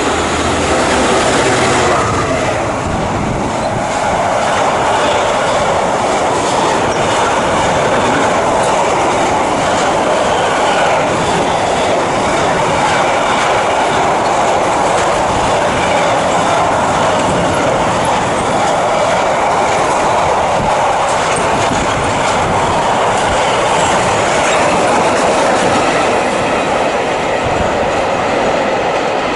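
DB Schenker freight train running through the station without stopping, a long steady rumble of locomotive and wagons passing at speed.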